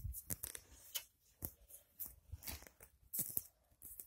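Hands scraping and scooping loose sand: a run of faint, irregular scrapes and crunches.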